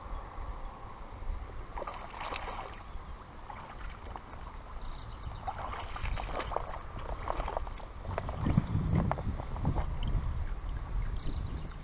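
Footsteps wading and sloshing through shallow river water over stones, with scattered splashes and knocks.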